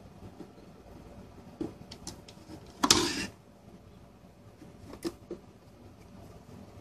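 A small screwdriver working the screws in the base of a plastic hard-drive dock, with light clicks and knocks of handling. About three seconds in, a short, louder scrape of handling noise.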